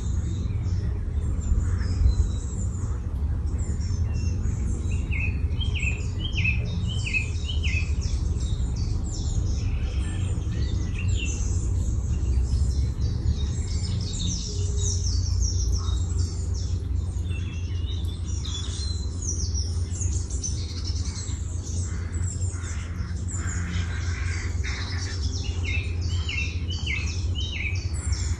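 Several birds singing and chirping, with a short phrase of quickly repeated notes heard twice, over a steady low rumble.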